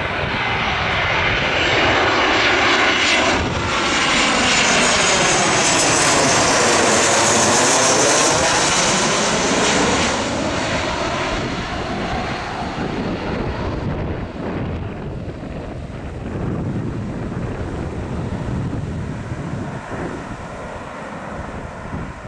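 Boeing 737 jet airliner on landing approach passing low overhead. Its engine noise swells to a loud, sweeping, phasing whoosh over the first ten seconds, then fades to a lower rumble as the plane flies on toward the runway.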